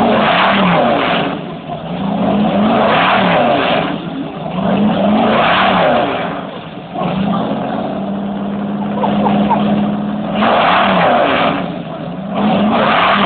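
Ford pickup truck engine being revved about five times, each blip rising and falling back to a steady idle. The longest idle stretch comes in the middle, and the engine runs loud and rumbling throughout.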